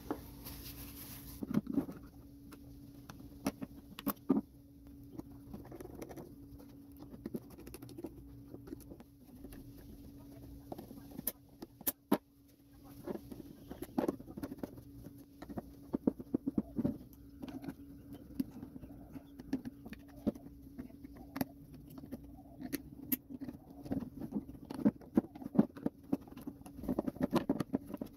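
Scattered small clicks, taps and scratching as hands handle the parts of an opened electronic throttle body: its plastic reduction gear, housing and spring-loaded throttle shaft, knocking on a wooden bench. The clicks come thicker near the end, over a steady low hum.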